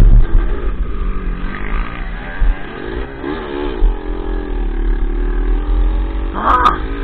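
Dirt bike engine running under load on a motocross track, its pitch rising and falling several times as the throttle opens and closes, over a heavy low rumble. A brief sharp burst sounds near the end.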